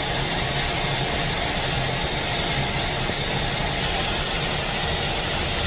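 Airbus A320 jet engine running through a cold start at minus 28 °C: a steady, even roar and hiss that does not rise or fall, over a low hum.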